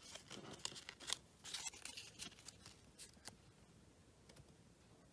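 Trading cards being handled: a run of faint light clicks and rustles for about three and a half seconds, then only the odd tick.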